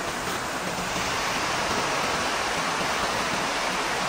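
Steady, even rushing air noise of a large workshop's ventilation fans running, a little louder from about a second in.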